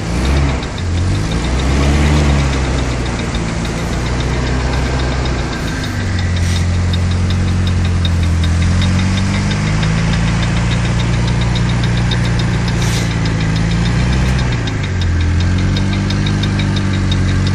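Great Wall Deer pickup's engine running hard as the truck is stuck in deep mud: the revs dip and climb again about two seconds in and near the end, holding high and steady in between. A fast, regular clicking runs over the engine note.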